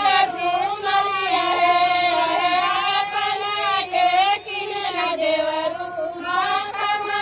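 Women's voices singing a paddy-transplanting folk song (ropni geet), a high melody in long held notes.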